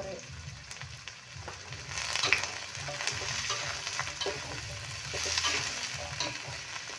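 Sliced carrots and green beans sizzling as they are stir-fried in a metal wok, with a spatula scraping and clicking against the pan. The frying grows louder about two seconds in.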